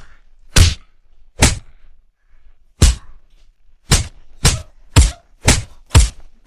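A series of about eight sharp fight-hit sound effects: punch and kick impacts, each a short smack with a brief tail. They come irregularly at first and then faster, about two a second, in the second half.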